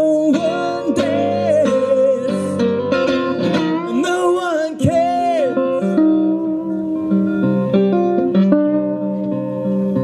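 Live acoustic blues on a resonator guitar. For about the first half a gliding, bending melody line rides over the guitar; after that the guitar carries on with steady picked notes.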